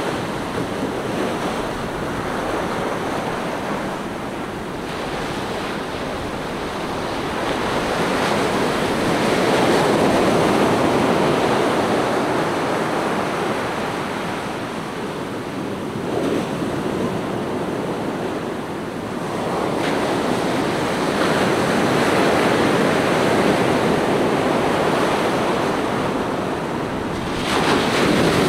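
Ocean surf: waves breaking and washing up a sand beach in slow surges that swell and fade every several seconds, with a wave crashing near the end.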